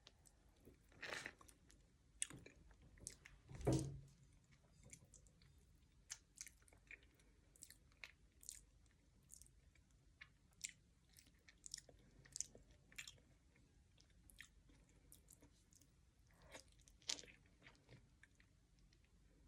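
Faint chewing of durian flesh: soft, scattered wet mouth clicks and smacks, with a louder thump about four seconds in. The piece is slightly underripe, its flesh firmer than the usual creamy texture.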